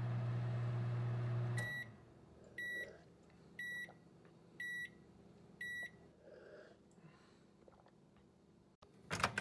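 Microwave oven humming as it runs, cutting off just under two seconds in as the cycle ends, then five short high beeps about a second apart signalling that the heating is done. Near the end comes a loud clatter of handling noise.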